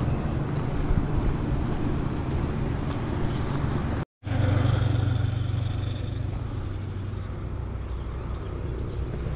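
Roadside traffic: passing cars and motorbikes over a steady low rumble. About four seconds in the sound cuts out for a moment, then an engine drone comes in and fades away.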